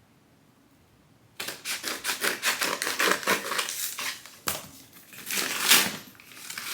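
A package being opened by hand: packaging crinkled and torn, a dense crackling rustle that starts suddenly about a second and a half in and goes on in loud bursts.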